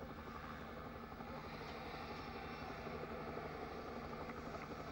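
Faint, steady engine drone over a background hiss: the live race ambience of vehicles following the riders up the climb.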